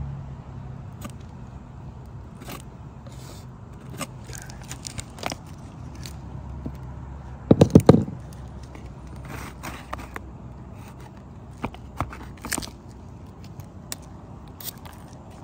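Scattered scrapes and sharp clicks of hand work with tools and materials, with a loud run of about five quick knocks about eight seconds in. A low hum fades out in the first second or two.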